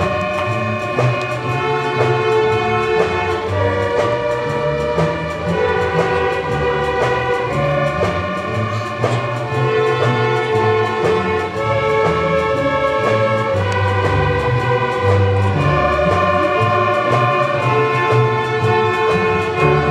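Student string orchestra of violins, cellos and double basses playing: held notes in the upper strings over a low part that moves from note to note.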